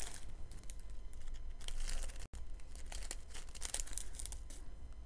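Small plastic bags of diamond-painting drills crinkling and rustling in irregular bursts as they are handled and sorted by hand.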